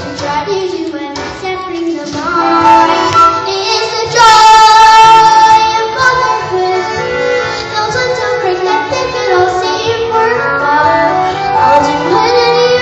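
A young girl singing a musical-theatre song, holding one long, loud high note about four seconds in.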